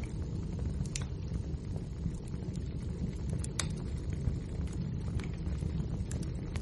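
Wood fire burning: a steady low rumble of flame with scattered crackles and pops, two sharper pops about a second in and just past halfway.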